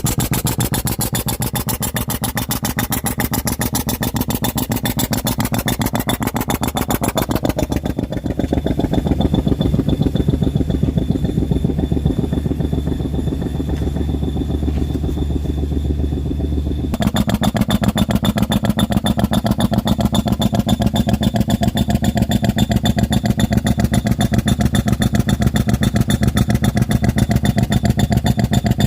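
A motor vehicle's engine running with a rapid, even pulsing. Its sound changes abruptly about seven seconds in and again about seventeen seconds in.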